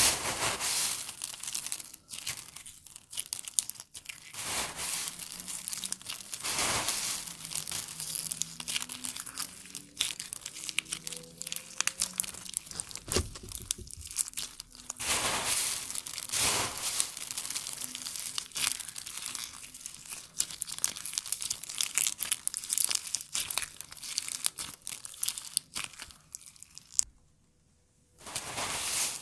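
Crunchy slime being pressed and squeezed by hand, giving a dense run of small crackles and pops with louder surges. It breaks off for about a second near the end, then starts again.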